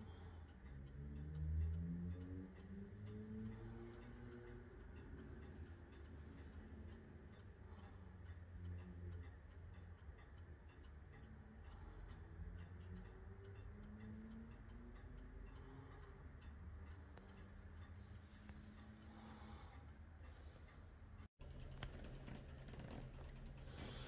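Antique Japy Frères French mantel clock's eight-day pendulum movement ticking with a quick, even beat.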